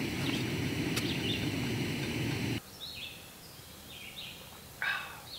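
Woodland ambience with small birds chirping now and then. A steady noise under it stops abruptly about two and a half seconds in, leaving the quieter birdsong, with a short rustle near the end.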